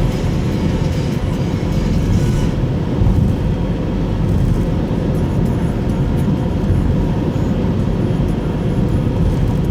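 Steady in-cabin driving noise of a Subaru Impreza Sport (GP7): a low rumble of engine and tyres on the road, heard from inside the car.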